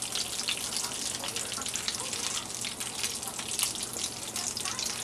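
Hot frying oil steadily crackling and sizzling in a stainless-steel skillet, left over from browning flour-dredged cube steaks.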